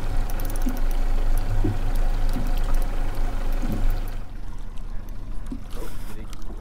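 Water washing and splashing around a small fishing boat's hull, over a low steady hum. About four seconds in it drops quieter, leaving scattered light clicks and knocks.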